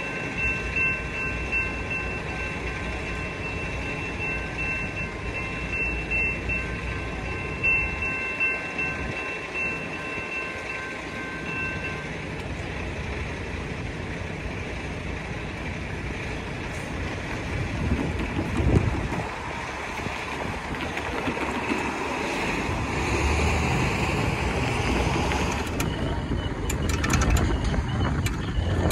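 Railroad crossing warning bell ringing steadily over the rumble of rail traffic, stopping about twelve seconds in. After that a low rumble and rushing noise grows louder toward the end, with a few sharp clicks just before the end.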